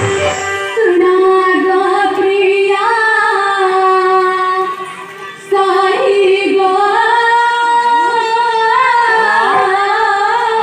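A young female voice singing a song of Odia Ramanatak folk theatre over a steady held accompaniment note. The melody comes in two long phrases, with a short break about five seconds in.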